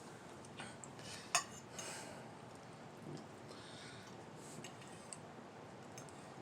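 Faint, scattered clinks of cutlery against a plate while eating, with one sharper clink about a second and a half in.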